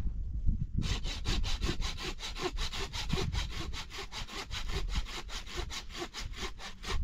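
Hand saw cutting through wood in quick, even back-and-forth strokes, about five a second, starting about a second in.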